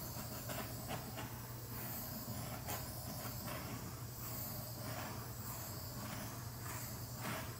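Small handheld torch burning with a steady hiss as its flame is swept over freshly poured epoxy resin to pop the air bubbles rising in the coating.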